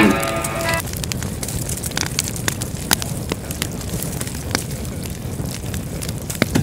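Campfire crackling: a steady hiss with scattered sharp pops, after a guitar note dies away in the first second.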